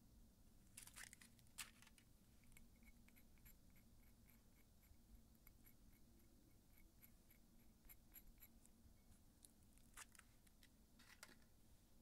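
Faint crinkling of aluminium foil nail wraps being worked off the fingertips, in two short bursts about a second in and near the end, with soft, evenly spaced ticking between them.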